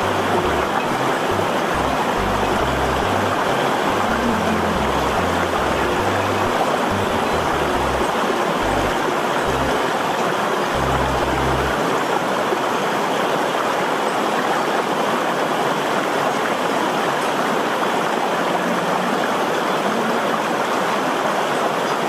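Steady rushing noise like running water, with a low, stepping bass line underneath that stops about halfway through.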